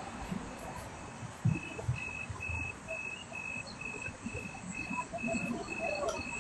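Outdoor night ambience: a low rumble with a high chirp that repeats evenly about twice a second from a second and a half in.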